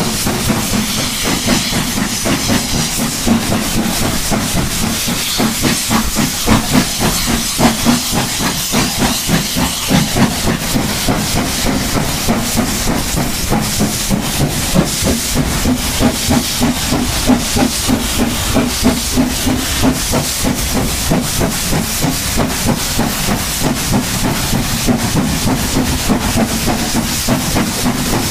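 Steam-hauled train in motion, heard from an open carriage window: the locomotive's exhaust beats in rapid succession with hissing steam, over the steady rumble and clatter of the coach wheels on the rails.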